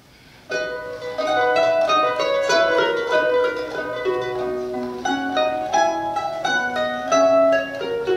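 Two mandolins playing a duet: after a brief hush the plucked notes begin about half a second in, with quick running melodic lines in both parts of the sonata.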